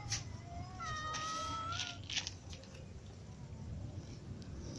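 A cat meowing: one long, fairly level meow about a second in, followed by a few short rustling clicks.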